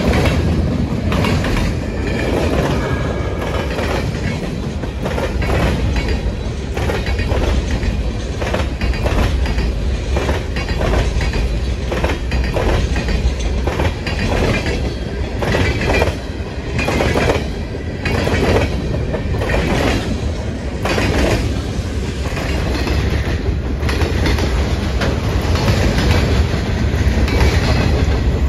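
Freight cars of a mixed freight train rolling past: a steady rumble of steel wheels on rail, with repeated clickety-clack from the wheels.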